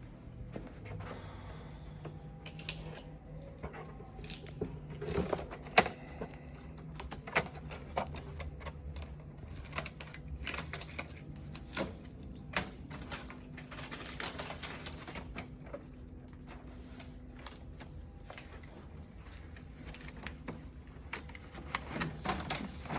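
Irregular sharp plastic clicks and knocks from the covers, trays and clips of a new Epson A4 inkjet printer as it is handled and opened, over a faint steady low hum.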